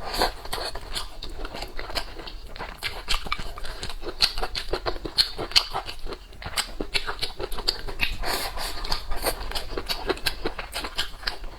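Close-miked chewing and lip-smacking while eating, a rapid irregular run of wet mouth clicks and smacks.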